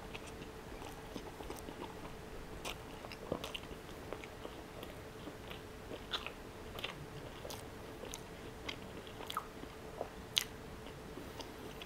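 Close-miked mouth sounds of a person chewing a chili cheese dog: soft, wet smacks and sharp little clicks at irregular intervals, over a faint steady hum.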